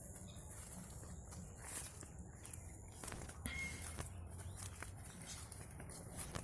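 Faint footsteps of a person walking outdoors over quiet natural ambience, with one short high note about three and a half seconds in.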